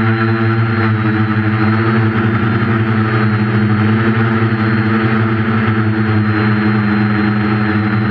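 Quadcopter's brushless motors and propellers droning steadily, picked up by the GoPro mounted on the craft, with a thin steady high whine above the hum.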